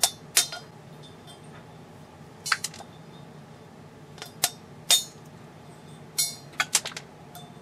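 Sharp clicks and clinks as small pliers snap pieces off the brittle base of a 12LP4 picture tube, freeing the leads at the glass neck. About ten snaps come in irregular clusters, a few of them close together near the end.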